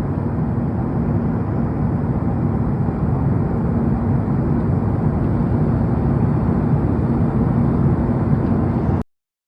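Steady low rumble of a running vehicle, with a faint steady hum over it; it cuts off suddenly near the end.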